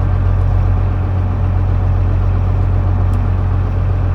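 Fishing boat's engine running steadily: an even, low drone with a strong hum.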